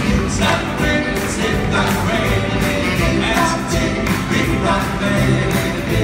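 Live doo-wop: a male vocal group singing in harmony over a band of drums, keyboard, electric guitar, bass and saxophone, with a steady beat.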